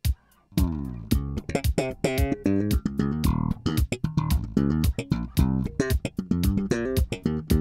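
Music with fast plucked bass and guitar notes, starting about half a second in.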